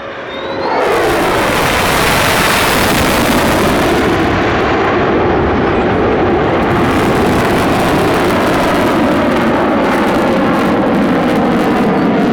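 Fighter jet flying past. The jet noise swells sharply in the first second with a falling pitch, then holds as loud, steady jet engine noise.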